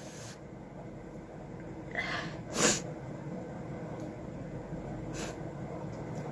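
A woman sneezes once about two and a half seconds in: a short breath in, then a sharp burst. A fainter, short nasal burst follows about five seconds in.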